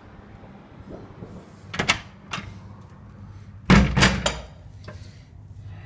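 Several sharp bangs or knocks: two about two seconds in, then a louder cluster of three or four close together about four seconds in, over a low steady hum.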